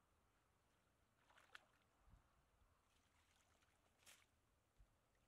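Faint sloshing of shallow muddy water as a hand net is moved through it, with two brief splashes, about one and a half seconds in and about four seconds in.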